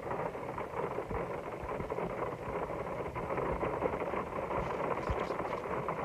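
Rain falling steadily on a car's windscreen and roof, heard from inside the cabin as a dense hiss of many small drop taps.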